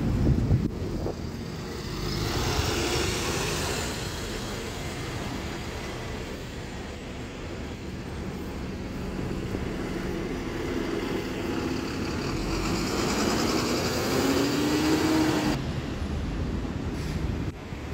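City street traffic with buses and other vehicles passing, engines running. The traffic swells as vehicles go by, about three seconds in and again around thirteen to fifteen seconds in, with a low thump right at the start.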